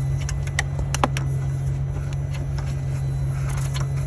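2016 Mercedes CLA engine running at a steady idle with a low, even hum and a few faint clicks. Its exhaust is blocked, the muffler frozen full of ice, the cause of the P050A code and the stalling shortly after start.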